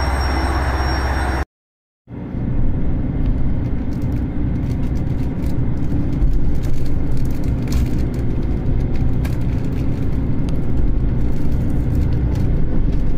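Running noise inside a Super Hakuto HOT7000 diesel railcar as it pulls away: a steady low engine and wheel rumble with faint clicks and rattles. It opens with a moment of platform noise that cuts off abruptly about a second and a half in, with half a second of silence before the cabin sound starts.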